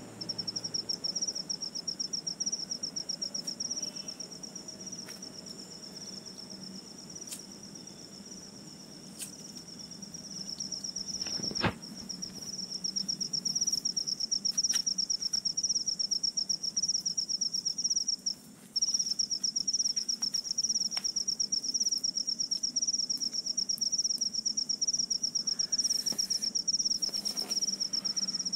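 A cricket's high, fast-pulsed trill, steady and unbroken except for a brief pause about two-thirds of the way through, with one sharp click near the middle.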